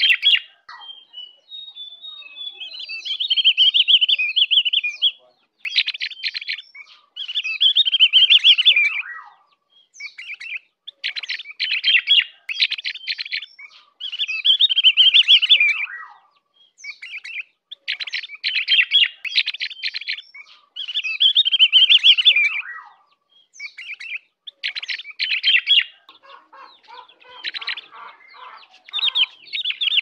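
Ovior (Javan grey-throated white-eye) singing: a run of fast, high twittering phrases, each a second or two long, with short breaks between them. Near the end a lower sound mixes in under the song.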